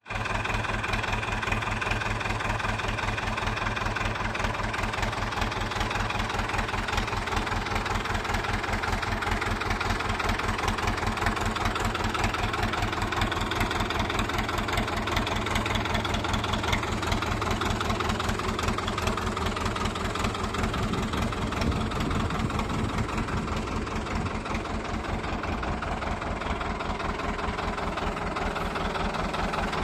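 1972 Fiat 600 tractor's diesel engine idling steadily, with an even, rapid beat of firing pulses.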